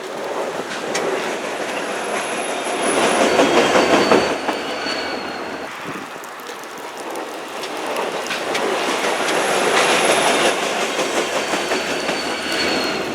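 A train rolling past, its wheels clicking over rail joints, loud twice as cars go by, with a thin high-pitched wheel squeal each time.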